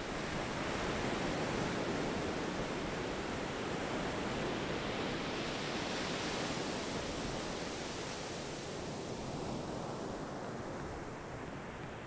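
Ocean surf breaking on a sandy beach: a wave's rush of water swells about a second in, holds for several seconds and slowly dies away toward the end.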